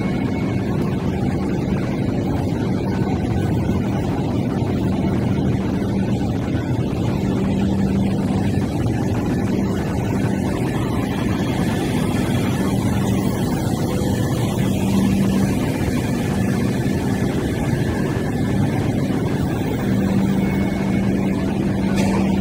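Hong Kong MTR Light Rail car running slowly past at close range on the terminus turning track: a steady low rumble with a hum that swells and fades. A brief click near the end.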